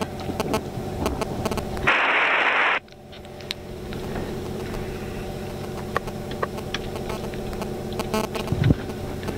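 Hiss and static from the helicopter's radio and headset intercom over a steady electrical hum, with scattered clicks. About two seconds in, a loud burst of static lasts just under a second and cuts off suddenly.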